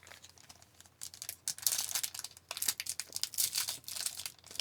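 A trading card pack's wrapper being torn open and crinkled by hand, starting about a second in as a run of irregular crackles.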